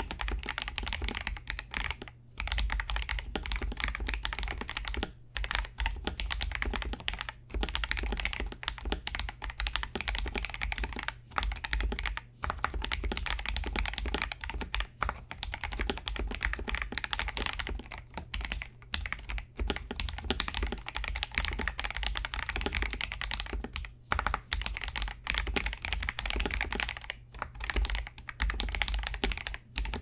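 Mechanical keyboard with Akko Starfish linear switches being typed on fast and steadily: a dense run of clacky keystrokes, broken by short pauses every few seconds.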